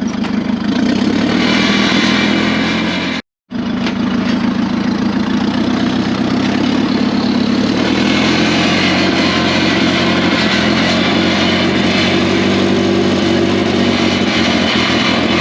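Old forklift's engine running steadily, breaking off briefly about three seconds in.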